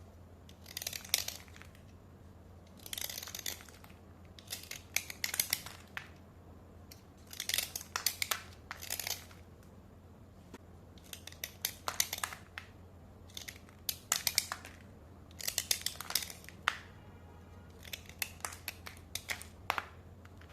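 Slate pencils being scraped dry: about a dozen short bursts of fine, crisp, crunchy scraping, each under a second, with brief pauses between strokes. A steady low hum lies underneath.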